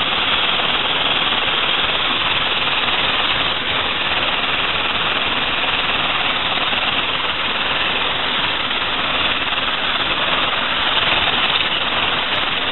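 Electric hand mixer running steadily, its beaters whirring through cake batter.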